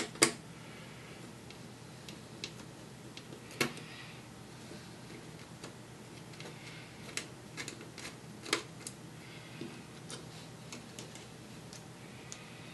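Sparse light clicks and taps from a laptop's plastic and metal parts being handled as its display hinges are released. The sharpest clicks come just after the start, about three and a half seconds in, and about eight and a half seconds in.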